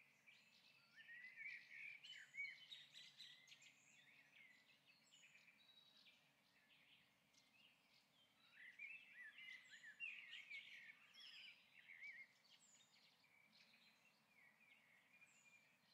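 Faint birds chirping and twittering in two busy bouts, with scattered single chirps between them.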